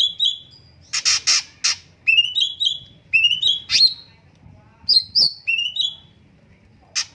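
Cucak cungkok singing: phrases of two or three quick upslurred whistled notes, repeated every second or so, with loud harsh rasping notes about a second in and again near the end.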